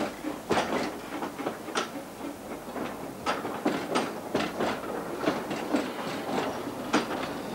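Narrow-gauge passenger carriages rolling past, their wheels clacking over the rail joints in a quick, uneven run of clicks over a steady rumble.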